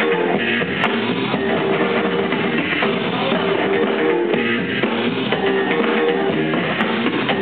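Loud music with a drum beat and guitar, playing without pause.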